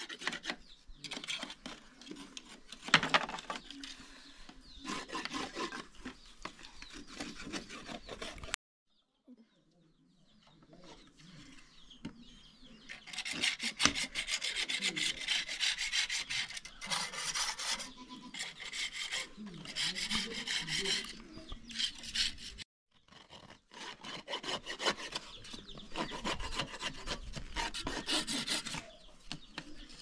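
Knife blades scraping wooden beehive frames clean, a fast, uneven run of rasping strokes. It breaks off briefly twice.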